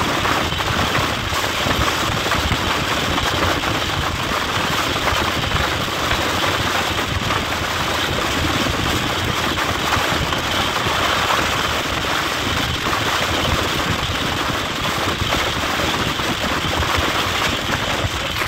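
Steady rush of wind and rolling wheels on the rails from an open window of a moving passenger train, with wind buffeting the microphone.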